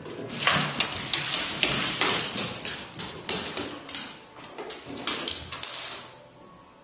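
Puppies' claws clicking and skittering on a hardwood floor during rough play, with irregular knocks and thumps that die down about six seconds in.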